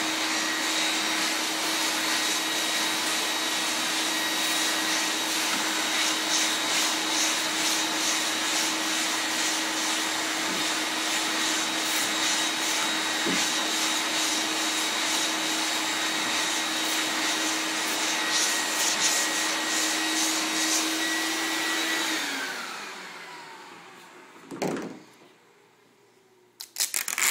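Shop vacuum running steadily with a whine, drawing sanding dust through a hose and vacuum sanding block while sandpaper is rubbed in strokes over a car body panel. About 22 seconds in the vacuum is switched off and its whine falls away as the motor spins down, followed by a few sharp knocks.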